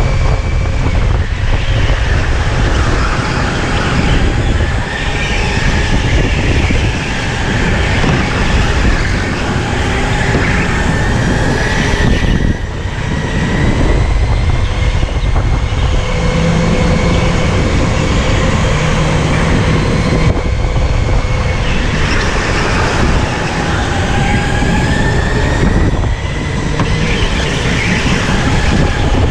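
Electric go-kart's motor whining at full drive, its pitch rising and falling with speed around the lap, over a heavy low rumble from the kart. The whine drops back briefly twice, about twelve seconds in and again near the end.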